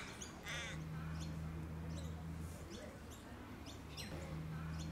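Outdoor birdsong: a harsh crow-like caw about half a second in, with small birds chirping repeatedly throughout. A low steady hum comes in twice underneath.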